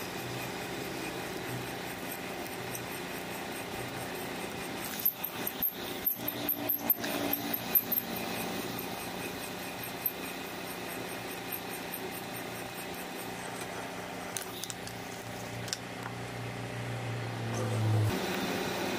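Metal lathe running with a twist drill boring into a workpiece turning in the chuck: a steady machine hum, with a run of sharp clicks from about five to eight seconds in. The low hum stops abruptly near the end.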